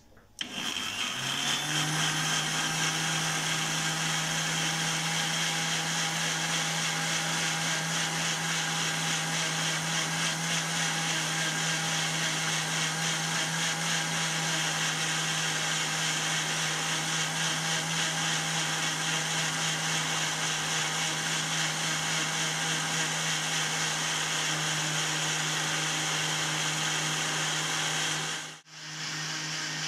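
Braun glass-jar blender motor starting and running steadily at speed, beating three raw eggs into a froth. It cuts out for a moment near the end, then runs on.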